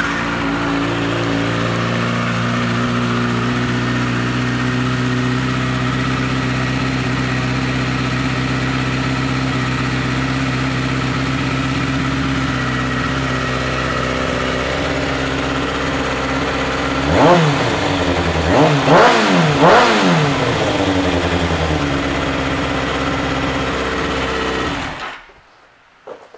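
2009 Kawasaki ZX-6R's inline-four engine, fitted with an M4 aftermarket exhaust, idling steadily. About two-thirds of the way through it is revved three times in quick succession, then settles back to idle and is shut off about a second before the end.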